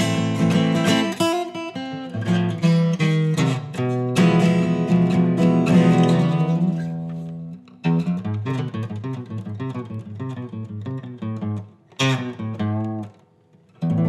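Acoustic guitar playing an instrumental passage of picked notes and chords. About four seconds in, a chord is left ringing and fades for a few seconds, and the playing stops briefly near the end.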